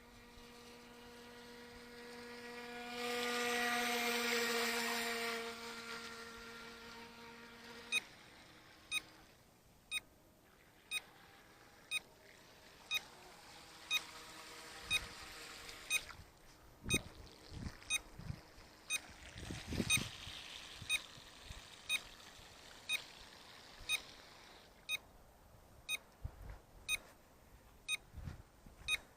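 Electric RC boat motor running with a steady buzzing whine that gets louder for a few seconds and cuts off about eight seconds in. After that, a short electronic beep repeats about once a second, with a few dull thumps in between.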